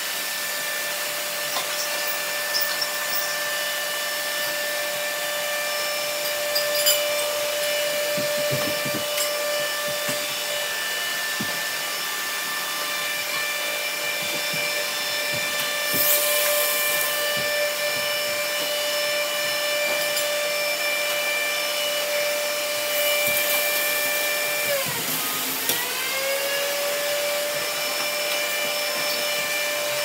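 Several robot vacuums running together: a steady whirring hum with a high whine, broken by a few light knocks. About 25 seconds in, the whine dips in pitch and climbs back.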